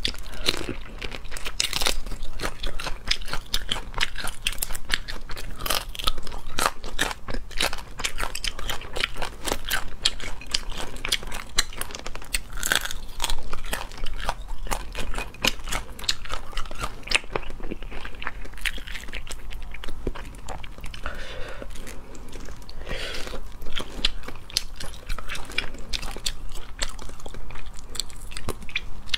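Close-miked eating of cooked crayfish: irregular crunching and crackling as the shells are bitten, mixed with chewing, keeps on without a break.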